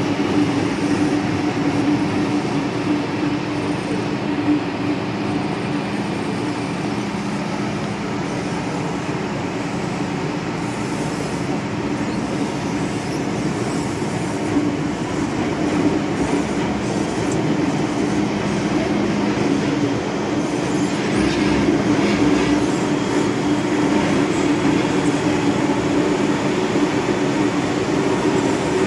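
MTR M-train electric multiple unit running on the rails: a steady rolling rumble with a constant hum underneath. About two-thirds of the way through it grows louder and harsher.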